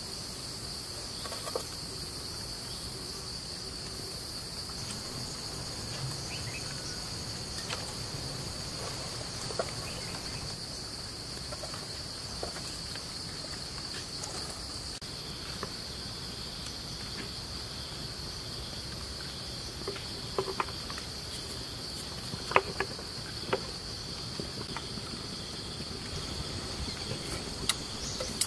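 Insects, such as crickets, chirring steadily at one high pitch. A few sharp clicks stand out about two-thirds of the way in and again near the end.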